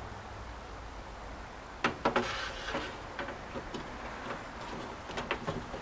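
A loose door window glass being lowered into a pickup's rear door, knocking lightly against the door frame a few times, with a short scrape about two seconds in.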